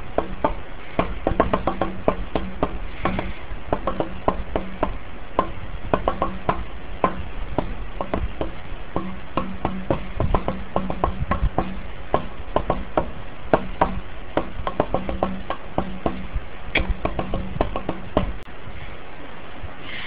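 Harbor Breeze Armitage ceiling fan running with a low hum and irregular rapid clicking and knocking. The clicks stop about eighteen seconds in, leaving a steady hum.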